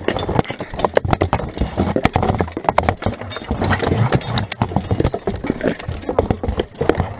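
Close-quarters medieval melee: a rapid, uneven run of sharp knocks and clanks from plate armour, steel shield bosses and weapons striking wooden shields as the shield line pushes into the enemy.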